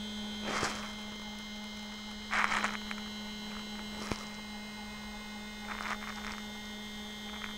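Stepper motor driving a benchtop linear stage's X axis at a steady rapid of 35 inches a minute: a steady single-tone hum, running smoothly without stalling. A few short scratchy noises and one sharp click sound over it.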